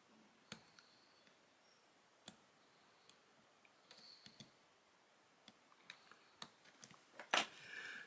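Scattered small clicks and ticks from handling the small parts of a Canon SX720 compact camera as it is put back together after a screen replacement, with one sharper, louder click about seven seconds in.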